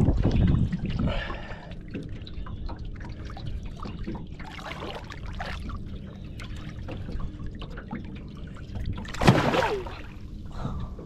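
Water trickling and sloshing as a mulloway (jewfish) is held in the water beside the boat for release; about nine seconds in, one loud splash as the fish kicks free and swims off.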